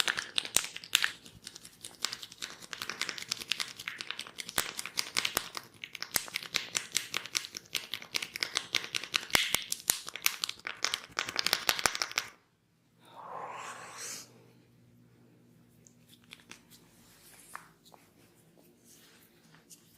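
Hands rubbing and scratching through hair and scalp during a head massage, close to the microphone, with rapid crackling and rustling. It stops abruptly about twelve seconds in, followed by a short soft rustle.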